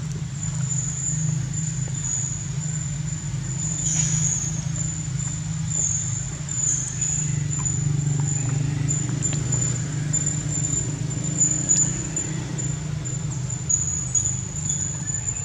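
Steady outdoor ambience: a constant low hum under a continuous high-pitched insect drone, with a few faint clicks.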